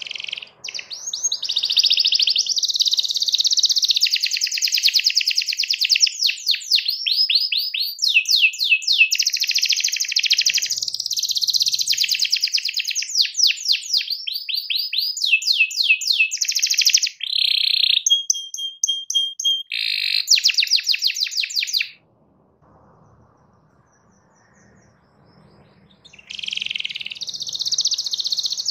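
Domestic canary singing a long, fast song of rapid rolling trills and varied phrases, with one held whistled note about two-thirds of the way through. It stops about 22 seconds in and starts singing again some four seconds later.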